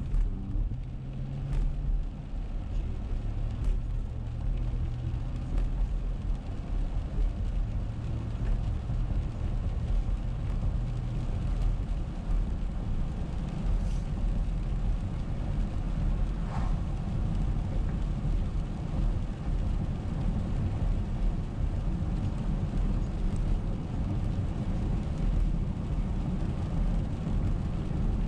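Steady low road noise from inside a car's cabin as it drives on a wet road: tyre and engine rumble, with a few faint ticks.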